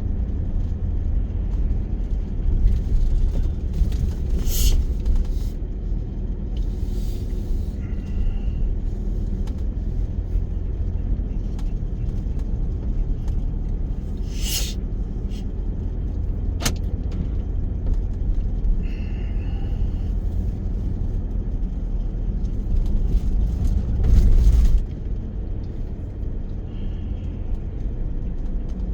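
Car engine and road rumble heard from inside the cabin while driving, steady and low, with a few brief higher noises and a single sharp click. The rumble eases slightly near the end.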